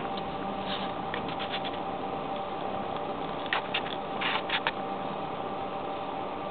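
A kitten's paws kneading another kitten's chest and fur, heard as a few short, soft scratchy sounds in two clusters, about a second in and again around four seconds in, over a steady low hum.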